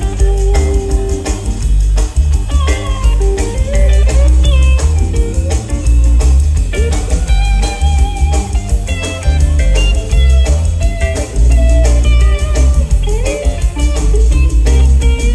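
Live rock band playing, led by a semi-hollow-body electric guitar picking a single-note melodic line with bent, gliding notes over bass and drums.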